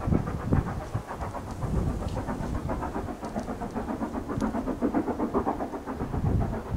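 Steam exhaust beats of the LNER B12 4-6-0 No. 8572, a rapid, even chuffing as it works hard uphill out of sight, echoing back across the fields. Low gusts of wind buffet the microphone near the start and again near the end.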